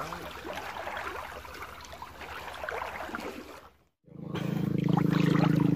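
Faint water sloshing around wading legs in a shallow ditch, with faint distant voices. After a brief dropout about four seconds in, a steady engine drone with a low hum fades up and stays loud.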